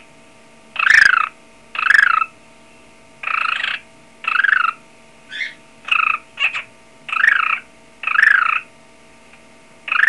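Cockatiel mimicking a telephone ring: a string of short, buzzy trilled calls, each about half a second long and roughly a second apart, with a few shorter, fainter ones in between.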